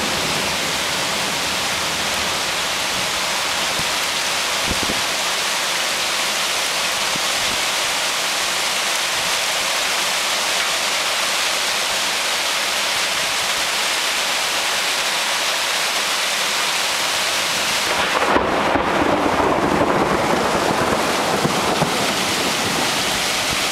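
Heavy thunderstorm downpour hissing steadily. About eighteen seconds in, a gust of wind takes over: a louder, rougher rush that buffets the microphone.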